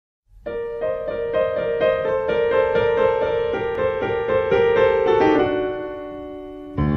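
Background piano music: quick repeated notes that settle into a held, fading chord about five seconds in, then a fuller passage with low bass notes starting near the end.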